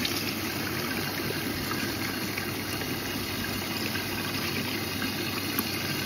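Siemens washing machine's inlet valve letting water in, jetting through the detergent drawer and flushing the powder into the drum: a steady rushing of water with a faint hum, starting suddenly at the beginning.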